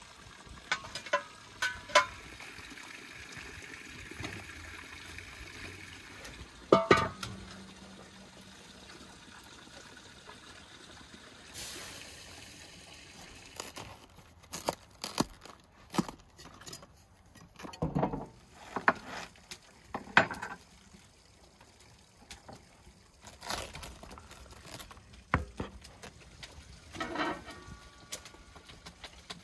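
Water poured from a metal bowl into a wide pot, with a few clanks of the bowl, as a steady splashing hiss in the first few seconds. Later a knife cuts into a raw cabbage head around its core, giving a run of crisp cracks and crunches, and near the end a ladle works in the pot of water.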